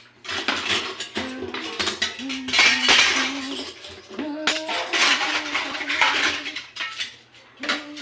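Dishes and cutlery clattering and clinking as they are washed by hand, with a voice humming held notes of a slow tune underneath.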